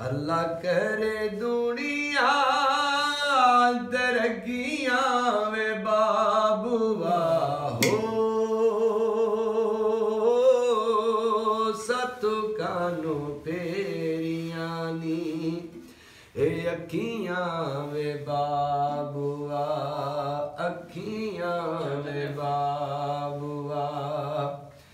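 A man singing solo in long, drawn-out notes with wavering, ornamented pitch and slides between notes, with a brief break about two-thirds of the way through.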